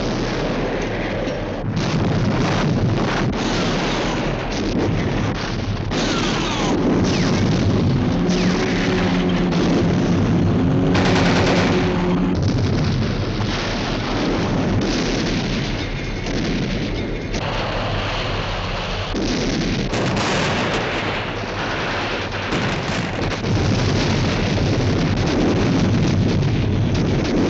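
Film battle soundtrack: continuous rifle and machine-gun fire mixed with booming artillery explosions.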